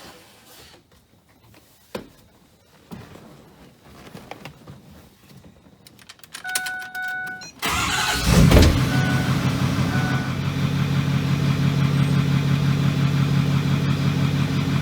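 2009 Ford Super Duty pickup's rebuilt engine cranking and starting about eight seconds in, then idling steadily. Before the start there are a few faint clicks and a brief beep.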